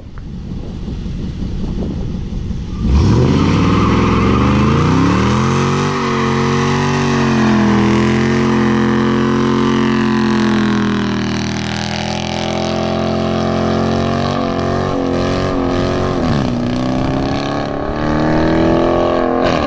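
Dodge Charger Daytona's HEMI V8 doing a burnout: it rumbles low, revs up sharply about three seconds in and holds high revs while the rear tyres spin and smoke. The revs dip and climb again twice in the second half.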